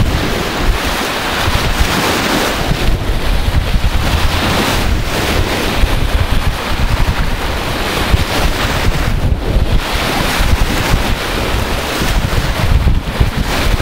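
Strong wind buffeting the camera microphone: a loud, gusty rumble and rush that rises and falls throughout.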